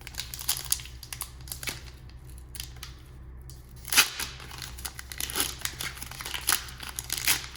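A foil trading-card pack wrapper being torn open and crinkled, with the cards handled, as a run of rustles and crackles; the sharpest crackle comes about four seconds in.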